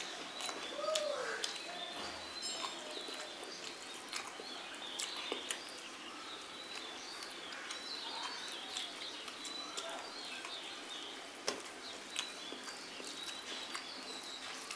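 Birds chirping and calling in the background, with scattered sharp clicks and small sounds of eating.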